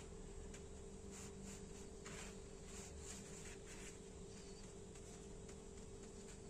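Faint rustling of hands patting and rolling a ball of barley dough in a tray of coarse barley grits (belboula), coming as short irregular brushes over a steady low hum.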